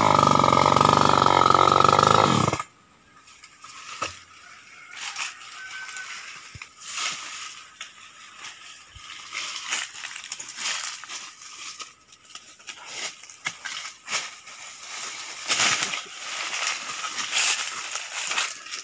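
A Stihl 070 two-stroke chainsaw running steadily, then cutting off suddenly about two and a half seconds in. After that, quieter irregular crackling and scraping of dry brush and twigs.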